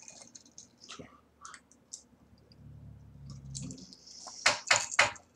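A person sipping from a wine glass: small scattered mouth and lip clicks, then a few louder sharp clicks near the end.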